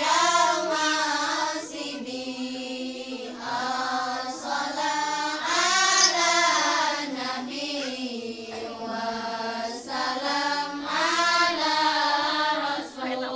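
A group of young women and girls chanting together in unison from booklets, a melodic religious recitation sung in long held phrases with short breaks between them.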